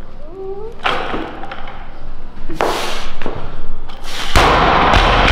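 A barbell loaded with bumper plates knocking down hard on a wooden lifting platform three times, about a second, two and a half, and four and a half seconds in, during snatch lift-offs into a full snatch. The last impact is followed by a long rattle and ring of the plates and bar.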